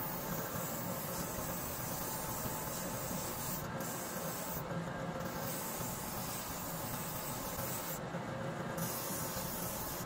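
Rubber boot sole being sanded against a spinning sanding wheel on a shoe finishing machine: a steady hissing rasp over the machine's running noise. The hiss lets up briefly three times as the sole comes off the wheel.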